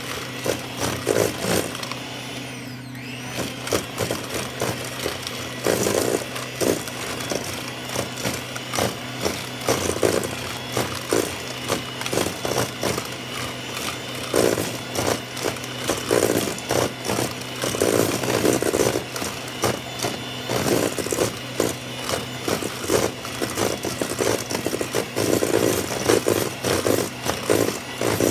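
Electric hand mixer running steadily, its beaters creaming butter and sugar and clattering against a stainless steel bowl.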